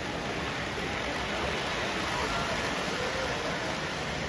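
Model trains running on a layout's metal track, a steady rushing noise, with faint voices of onlookers in the background.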